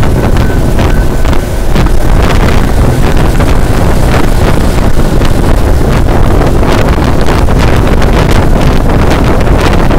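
Wind buffeting the microphone from a moving vehicle, loud and gusty, over a steady low road rumble.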